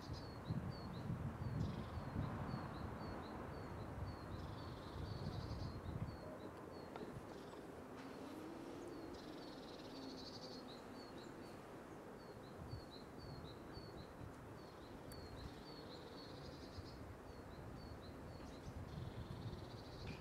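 Outdoor ambience: a small animal chirping, short high chirps repeated evenly at about three a second, with a few brief louder high calls. A low rumble on the microphone sits under it for the first six seconds and returns near the end.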